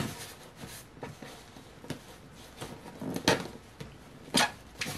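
Handling noises of a plastic fashion doll, a Disney Store Ariel, being dressed: soft rustles and light clicks of doll and fabric. There are a few sharper knocks, one right at the start, then about three and four and a half seconds in.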